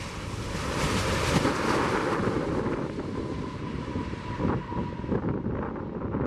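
Jet engines of an Airbus A330-200 airliner as it touches down and rolls out along the runway. Their roar swells about a second in and fades off after about five seconds, with wind buffeting the microphone underneath.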